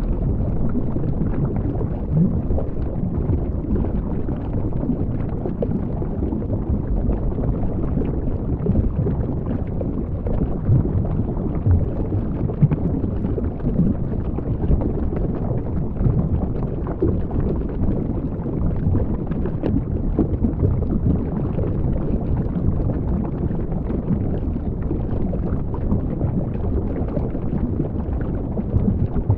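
Muffled underwater ambience picked up by a camera in its waterproof housing: a steady low rumble of moving water with faint crackles scattered through it.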